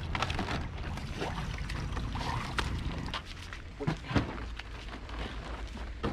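Water sloshing and dripping as a plastic-bottle boat is lifted out of the water, over a low outdoor rumble. After a cut, two sharp knocks about four seconds in as the boat is handled onto a pickup truck bed.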